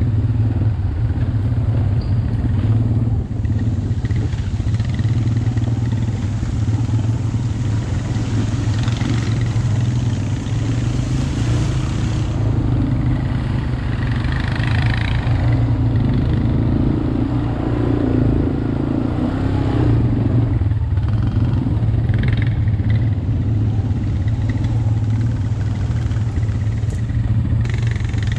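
Four-wheeler (ATV) engine running steadily while being ridden, a constant low hum.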